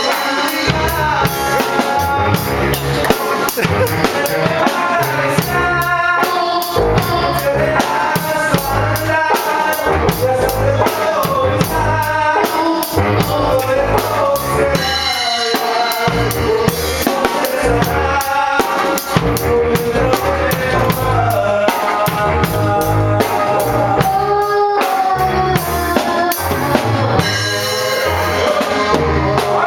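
Norteño band playing live with a drum kit: steady bass drum and snare strokes under a melodic lead.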